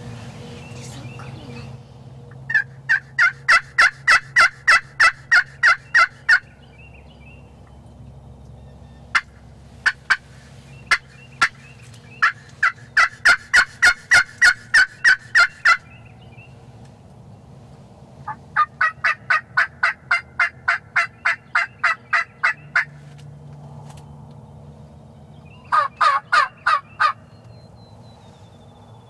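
Yelping on a hand-held turkey pot call: several runs of quick, evenly spaced notes, about four or five a second, each run lasting a few seconds with pauses between.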